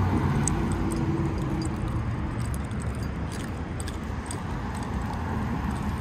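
Road traffic: cars passing on a multi-lane street, heard as a steady rumble of engines and tyres.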